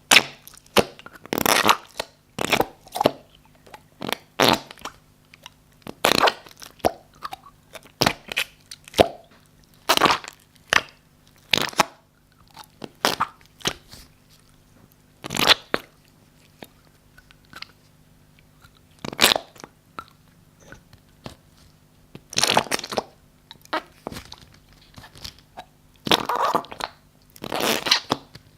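Slime being squeezed and pressed by hand, giving irregular wet crackles, squelches and pops, a few every couple of seconds, with some longer squelches in the last third.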